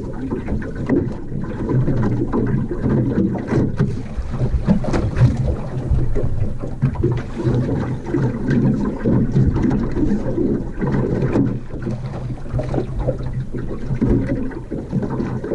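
Small fishing boat on the water: a low, steady motor hum with wind buffeting the microphone and some scattered knocks.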